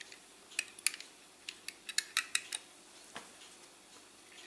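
Light, sharp clicks of a diecast model car being handled in the fingers, then a single dull knock as the model is set down on the table.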